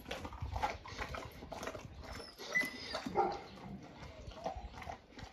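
Large mastiff-type dog chewing a whole raw duck: irregular wet crunching, tearing and jaw smacks. It chews slowly, working at a carcass too tough and whole to break down quickly.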